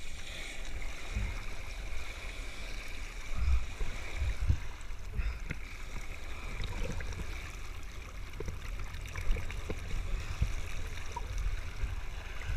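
Sea water rushing and splashing around a person in a wetsuit moving through the water, with irregular low buffeting thumps on the camera's microphone.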